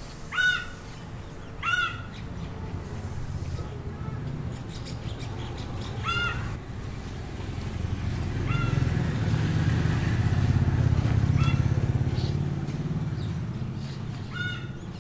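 A bird gives short calls, about six of them, a few seconds apart. Under them a low engine hum swells, loudest around the middle, and then fades.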